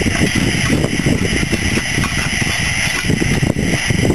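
A 7¼-inch gauge miniature steam locomotive hissing steadily while its fire is dropped, with an irregular low rattle and rustle underneath.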